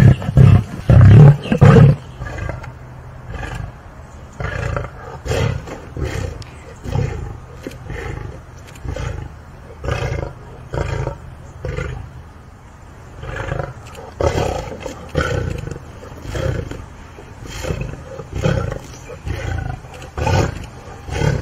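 Lioness snarling and growling in repeated short bursts, roughly one a second, while she holds a pumpkin under her paws: a possessive warning snarl. The first couple of seconds hold louder, longer roars.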